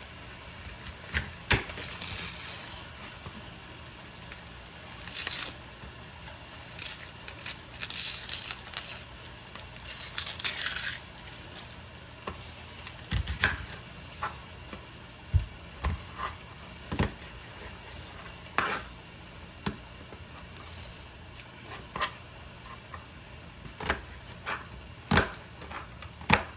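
Kitchen prep sounds: packaging crinkling and tearing in several short bursts, then scattered single knocks on the counter and cutting board.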